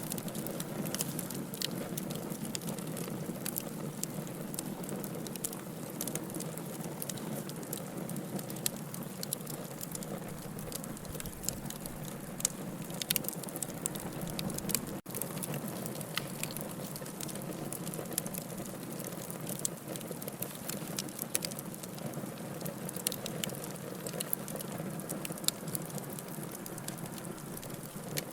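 Wood fire burning in a fireplace: a steady low rush of flames with frequent sharp crackles and pops scattered irregularly throughout. The sound cuts out for an instant about halfway through.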